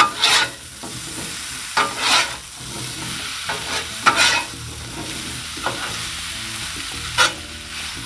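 French fries sizzling in oil on the steel top of a Blackstone 22-inch flat-top griddle, over a steady hiss. Several sharp scrapes of metal spatulas across the griddle as the fries are turned.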